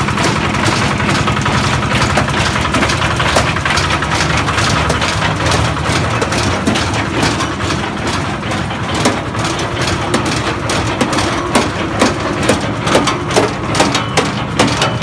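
Feed-making machine running with a steady mechanical drone; in the second half, sharp knocks come in and settle into a regular beat of about two a second.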